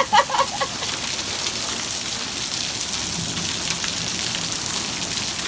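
Heavy monsoon downpour with hail: a steady hiss of rain pelting the ground, with scattered sharp ticks of hailstones.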